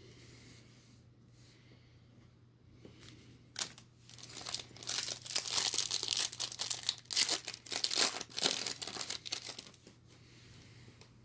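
A trading card pack wrapper being torn open and crinkled. It starts about a third of the way in, goes on in a dense crackling run for about six seconds and stops near the end.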